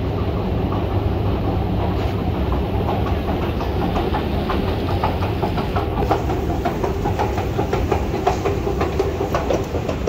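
Escalator running: a steady low rumble with fast clattering from the moving steps, the clicks growing sharper in the second half.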